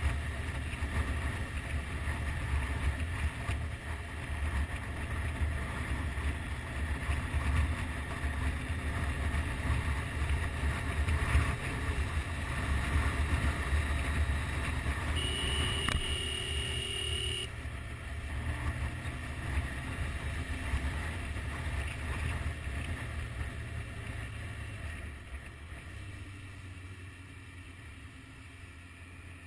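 Motorcycle at highway speed: wind rushing and buffeting the microphone over the engine and road rumble. About halfway through a horn sounds steadily for about two seconds. The rushing eases off over the last few seconds.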